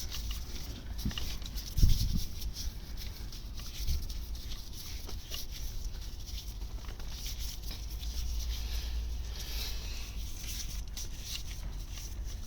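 Hand tools at work on the screws of a motorcycle engine's clutch cover: scattered small clicks and taps, with a louder knock about two seconds in, over a steady low rumble.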